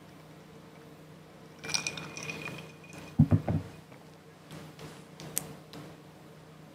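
A drinking glass being handled after a sip, with a clink and brief ring of glass about two seconds in. A short low sound, the loudest moment, comes about three seconds in, followed by a few light knocks and clicks as the glass is set down.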